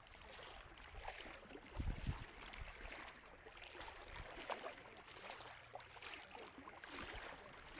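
Faint lapping and trickling of small ripples in calm, shallow seawater at the shore, with a few low bumps about two seconds in.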